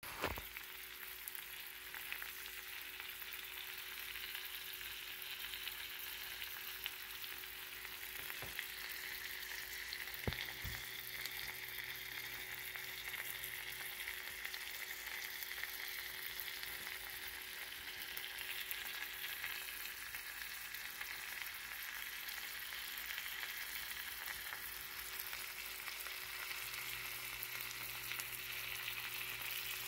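Salmon fillets frying in butter in a nonstick pan: a steady sizzle with fine crackling, and a couple of sharp ticks partway through.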